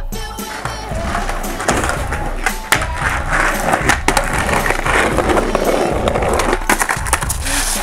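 Skateboard wheels rolling over a concrete sidewalk, clacking across the slab joints, with sharp knocks of the board under the rider's feet; the sharpest knock comes a little under three seconds in.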